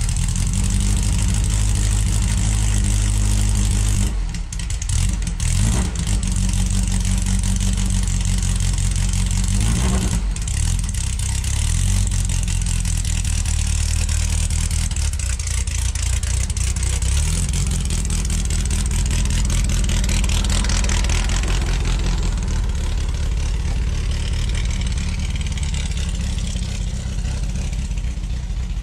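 VW Baja Bug's air-cooled Type 1 flat-four, cold-started: it runs, with a few changes in engine speed in the first ten seconds, then drives off past, a little fainter near the end.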